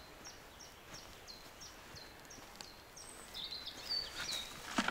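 Songbirds singing: one repeats a short falling whistled note about once every 0.7 seconds through the first half, then another gives a quicker twittering phrase. Near the end, a sharp crunch of a footstep on the forest floor.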